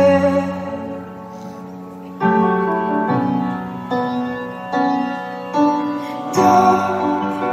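Live piano playing slow chords, each struck and left to ring and fade, about one a second, with a softer stretch early on and a fuller, louder chord near the end.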